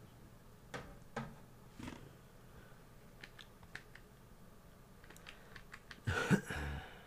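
Scattered computer mouse and keyboard clicks: three sharp clicks in the first two seconds, then a run of faint ticks. A louder cluster of clicking and handling noise follows about six seconds in.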